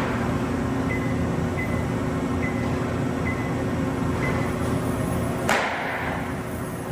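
CNC turning center running with a steady machine hum, a faint short high chirp repeating about every 0.8 s. A sharp hiss about five and a half seconds in fades over about a second.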